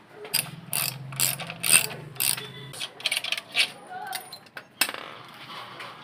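Irregular sharp metallic clicks and clatter of hand tools and parts on the dismantled alternator end of a Promate 1500 gasoline generator, with a low hum through the first half.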